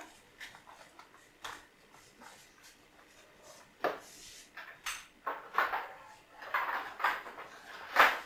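Irregular clinks and knocks of dishes and kitchen things being handled, a few separate ones at first, then busier clatter from about five seconds in, the loudest knock near the end.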